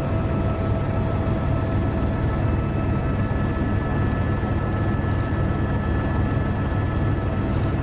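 Steady drone of an aircraft's engine, a constant low rumble with a few steady high tones above it.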